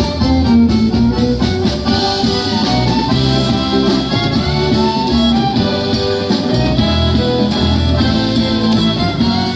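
Instrumental music playing steadily, with many notes and no voice.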